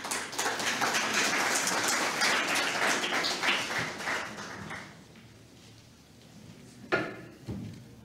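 Audience applauding in a hall, a dense patter of clapping that dies away about five seconds in. A single short knock near the end.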